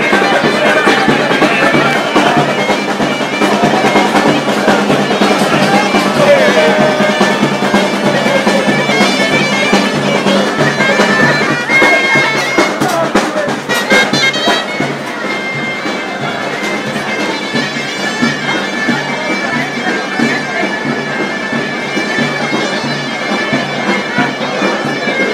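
Loud, reedy wind-instrument music: a shrill held melody over a steady low beat, with a crowd's voices mixed in. It eases off a little about halfway through.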